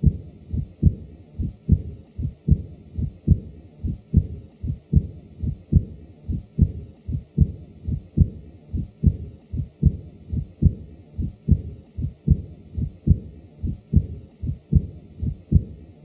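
Auscultated heart sounds from a man with mild aortic regurgitation: a steady beat a little over once a second, each second heart sound followed at once by a softer early diastolic murmur that fades during diastole. The murmur of aortic regurgitation usually has a blowing quality.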